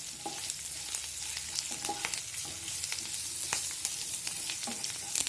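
Tempering of dals, mustard seeds, curry leaves and green chillies sizzling in hot oil in a pan, with frequent small crackles and pops as it is stirred.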